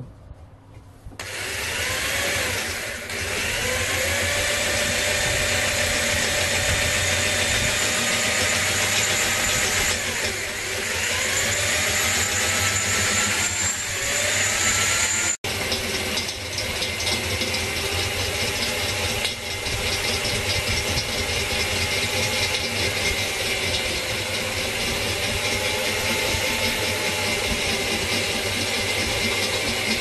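Atlas Copco two-speed electric drill running with a twist bit boring into the hard steel wall of an LPG gas cylinder, enlarging pilot holes. The motor whine rises in pitch now and then as the load changes, with a momentary break about halfway.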